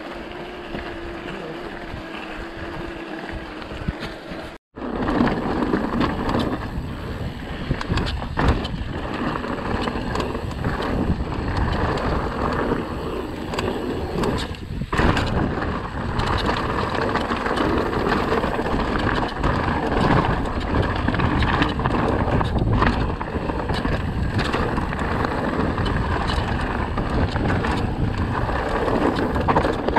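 Mountain bike ridden over a track, heard from on the bike: quieter tyre and wind noise for the first few seconds, then after a sudden break a loud steady rumble and rattle of tyres and bike over rough stony ground, with many sharp knocks.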